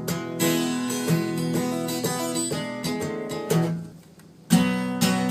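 Acoustic guitar strummed in chords, with a brief break about four seconds in before the strumming starts again.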